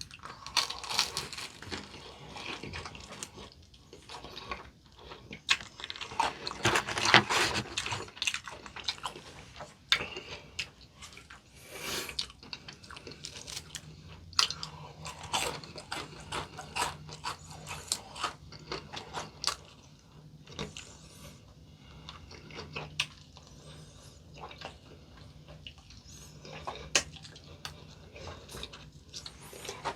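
Close-miked chewing and crunching of potato-crusted fried chicken, with many irregular crisp cracks of bites and chews. A thick run of loud crunching comes about a quarter of the way in.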